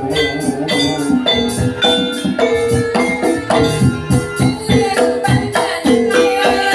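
Jaranan gamelan music: struck metal gongs and metallophones playing a quick, even pattern. The heavy bass drops out and comes back in just after the end.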